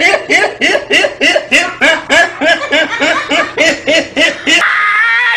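A person laughing hard in fast, even 'ha-ha-ha' bursts, several a second. Near the end the laugh breaks into a high, wavering note.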